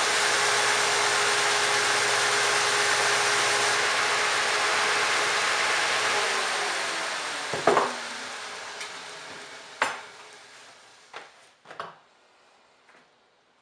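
Grinder running with a steady hiss while tapering a steel knife tang. About six seconds in it is switched off and winds down, its tone sliding lower as it fades, with a few sharp knocks as it slows.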